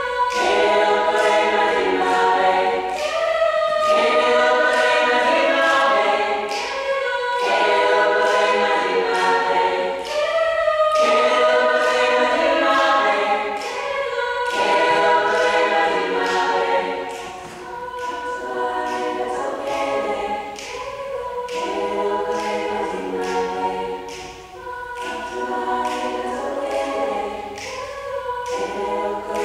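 Women's a cappella group singing a South African song in several-part harmony, in phrases that repeat about every three and a half seconds, with short sharp clicks keeping a steady beat.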